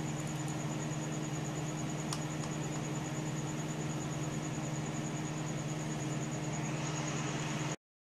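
Steady hum and hiss of a running computer, with a low hum and a thin high whine, and two faint clicks about two seconds in. The sound cuts off abruptly near the end.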